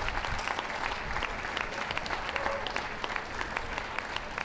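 Audience applauding: many hands clapping steadily, without a break.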